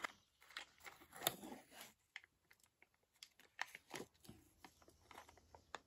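Thin plastic snack tray of a Nocilla Sticks pack being handled and its sealed lid peeled back, giving scattered faint crackles and clicks.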